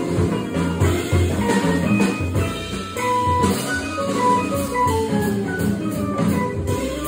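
Jazz trio of electric guitar, organ and drum kit playing live: a melodic line of single notes over drums and low bass notes, the line stepping downward through the second half.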